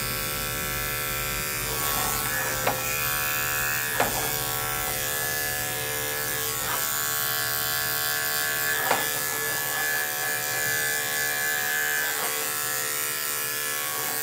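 Electric pet grooming clippers running steadily as they shave a dog's coat, with a few short knocks along the way.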